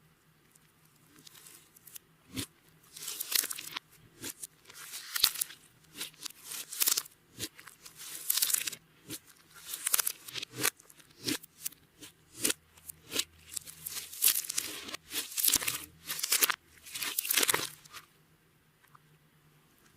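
Hands working clear slime, a run of crackling, sticky squishes and pulls, one every second or so.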